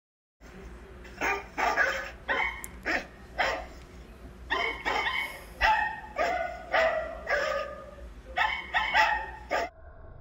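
Small Corgi–Chihuahua mix dog barking repeatedly: a dozen or more sharp barks in quick, irregular runs.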